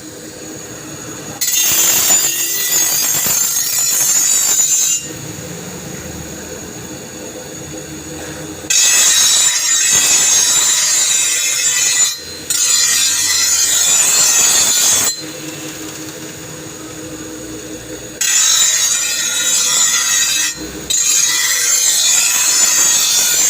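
Steel pressed against a motor-driven grinding wheel in five grinding passes of two to four seconds each, with a harsh, hissing sound. The motor runs with a steady hum in between.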